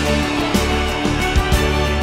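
Loud background music: sustained notes with sharp drum-like hits.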